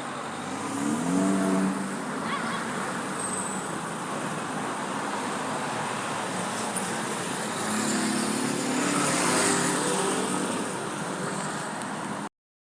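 Street traffic: a steady hum of cars, with two vehicles passing more loudly about a second in and again near the end, before the sound cuts off suddenly.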